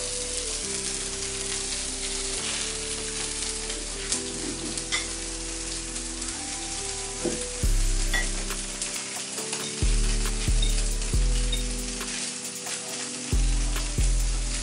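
Food sizzling and crackling in a frying pan, as if being stir-fried, over music with held notes; deep bass notes start hitting and fading about halfway through.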